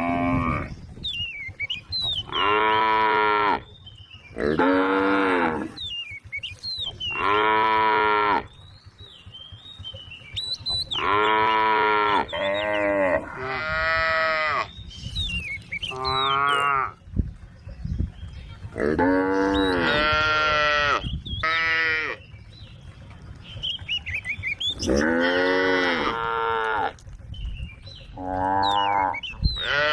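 Several cows mooing again and again, calling to one another: a dozen or so long calls, each about a second long, coming every few seconds and sometimes overlapping.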